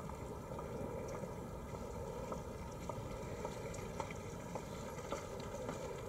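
Steady ambient background noise, a low rumble and hiss, with a few faint scattered clicks.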